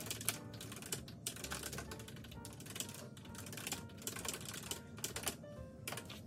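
Typing on a computer keyboard: a quick, uneven run of key clicks, with soft background music under it.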